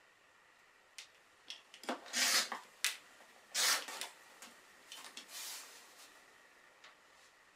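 Rotary cutter run along an acrylic quilting ruler, slicing through a pieced cotton block on a cutting mat: two short cuts about two and three and a half seconds in, with clicks of the ruler being set down and the rustle of the fabric block being turned and smoothed.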